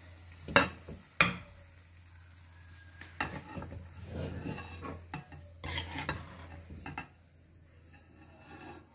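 Steel serving spoon knocking on and scraping a steel karahi while scooping out cooked aloo methi, with a light sizzle from the hot oil. Two sharp knocks about half a second and a second in, then several seconds of scraping and clinking that die down near the end.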